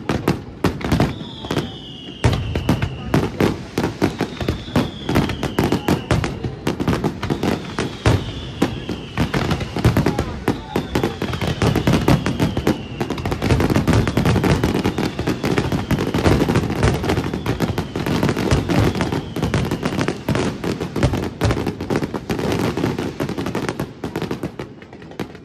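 Fireworks display firing a dense barrage of rapid bangs and crackling, with a whistle falling in pitch that repeats about every two seconds. The barrage eases off near the end.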